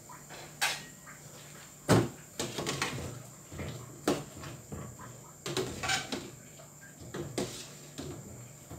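A series of sharp knocks and clatters from a metal cooking pot and its lid being handled and lifted off a gas stove, the loudest about two seconds in.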